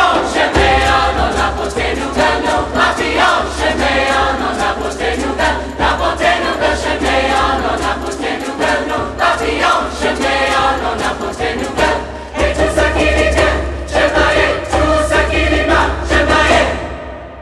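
Mixed youth choir singing a rhythmic traditional Haitian chant in parts, over a beat of sharp hits, and stopping together near the end.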